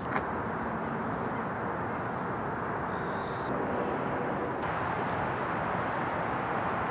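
Steady outdoor background rumble of distant vehicles, even and unbroken, with a single sharp click just after the start.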